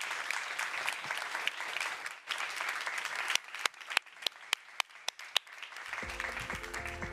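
Audience applauding, dense at first and thinning to scattered claps after about three seconds. Music comes in near the end.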